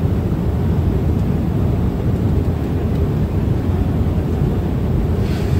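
Airliner cabin noise: a steady low rumble of engine and airflow noise inside the passenger cabin.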